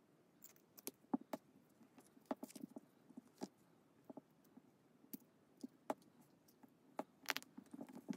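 Faint, irregular clicks and taps of fingers handling two machined brass £1 coin halves as they are fitted and pressed together.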